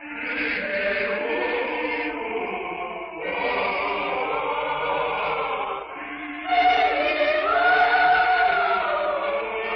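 Choir singing in long held phrases, with short breaks about three and six seconds in.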